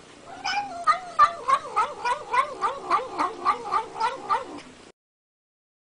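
Domestic cat yowling: one long, warbling call whose pitch wavers up and down, pulsing about three times a second, cut off near the end.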